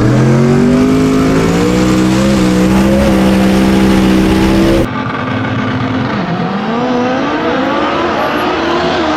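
Drag racing car's engine at full throttle, its pitch climbing steadily as it pulls hard. About five seconds in the sound cuts abruptly to another take of the car accelerating, where the pitch drops briefly and then climbs again.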